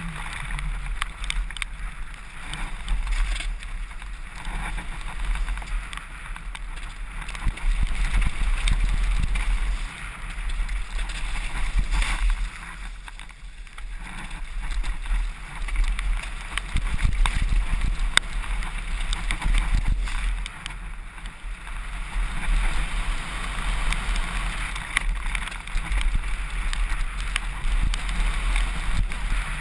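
Wind rushing and buffeting over a GoPro action camera's microphone on a mountain bike descending a rough, wet downhill trail at speed, with frequent rattles and knocks from the bike over the rough ground.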